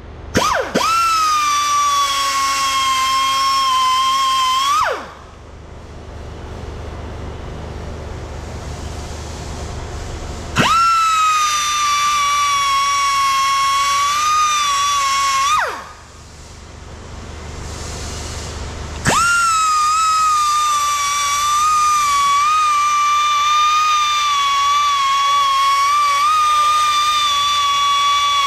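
Die grinder grinding the aluminium opening of an intake manifold: a high whine that spins up sharply at each start, sags a little under load and winds down when released. It runs three times, for about five, five and nine seconds, with pauses between. A low hum fills the pauses.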